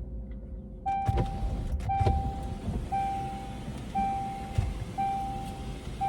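An electronic beeper sounding a steady mid-pitched tone about once a second, starting about a second in: six beeps, each nearly a second long with a short gap between, over a low rumble with a few soft thumps.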